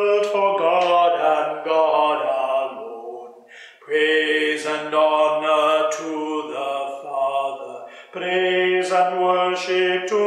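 A man's voice singing a hymn unaccompanied, in held sung phrases with breaks for breath about 3.5 and 8 seconds in.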